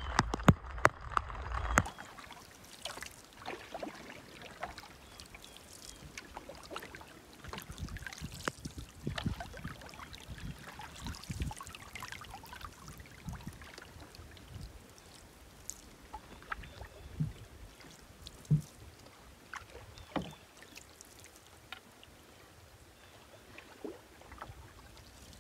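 Canoe being paddled: irregular paddle splashes and drips with occasional louder knocks. The sound is busier and louder for the first two seconds.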